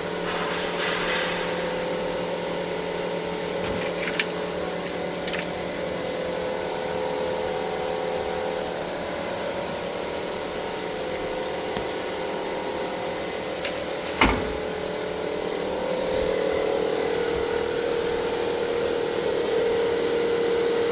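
Steady hum of a smoke-leak tester's air pump pressurising the truck's intercooler and intake, a smoke test for boost leaks. It steps up slightly about 16 seconds in and again near the end, and a single sharp knock comes about 14 seconds in.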